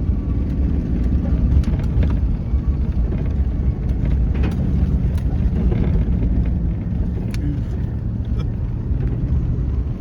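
Motor vehicle driving, a steady low rumble of engine and road noise.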